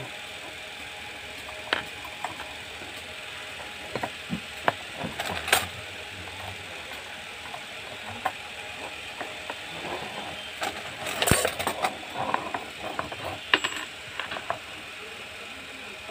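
Perforated galvanized steel strips, bolts and nuts clinking and knocking against each other and the wooden table as they are handled and fitted together. The clicks are scattered, with a busier spell around the middle and a louder, busier one in the last third.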